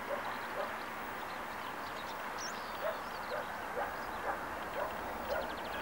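Small birds chirping and twittering over a steady distant rush of jet noise from an Airbus A330-300 early in its takeoff roll. A quick run of high ticks comes near the end.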